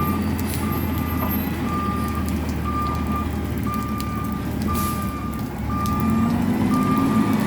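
Front-load garbage truck's backup alarm beeping about once a second over its diesel engine running, the engine rising in pitch near the end. Water drips and taps in the background.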